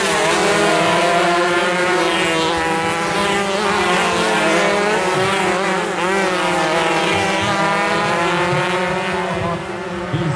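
Several 125cc two-stroke underbone race motorcycles revving hard as they pass on the track, their engine pitch rising and falling, with a dip about six seconds in.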